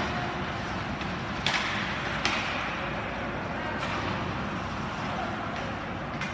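Ice hockey play in an indoor rink: a steady hiss of skates and rink noise, with two sharp clacks of stick and puck about a second and a half and two seconds in, and a few fainter knocks later.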